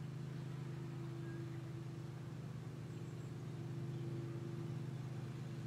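Steady low background hum, with a fainter higher tone that fades out about a second in and returns near the end.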